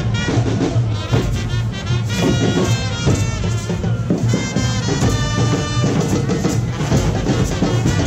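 Live carnival street band playing: drums beating a steady, driving rhythm with held melodic notes sounding over them now and then.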